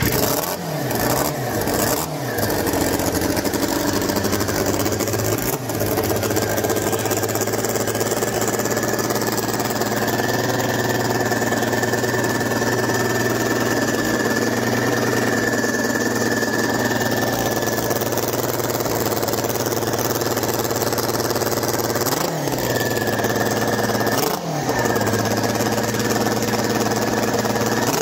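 Yamaha Apex snowmobile four-cylinder four-stroke engine with a Garrett-clone turbo, run without an exhaust system, catches and revs up at the start. It then runs steadily. Near the end the hand throttle swings the revs sharply twice.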